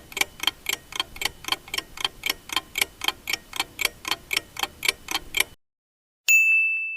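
Clock ticking countdown sound effect, about four ticks a second, stopping abruptly about five and a half seconds in; after a short pause a single bright ding rings out and fades, marking time up.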